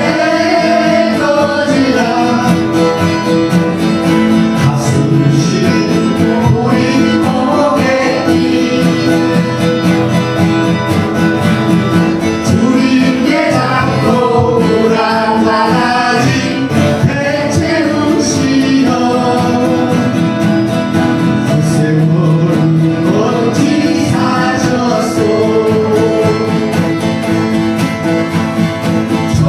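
A woman sings a song into a microphone, accompanied by several acoustic guitars strummed together in a steady rhythm.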